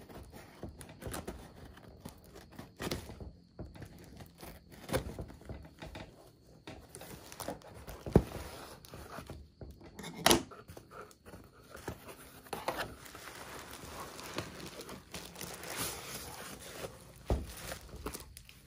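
Scissors cutting through packing tape on a cardboard box, with scraping and tearing. The cardboard flaps are then opened with a couple of sharp knocks about halfway through, and plastic wrap crinkles over the last few seconds as it is pulled away.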